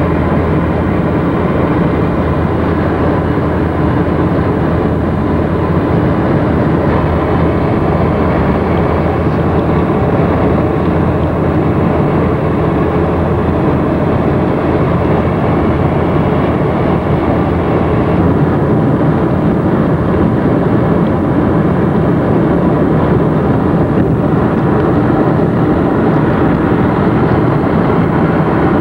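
Steady road noise of a vehicle driving at highway speed, heard from inside the cabin: a constant rush of tyres, engine and wind.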